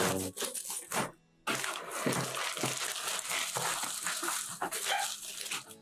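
Clear plastic wrapping crinkling and rustling as it is handled and pulled off studio stand parts, with a brief pause a little over a second in.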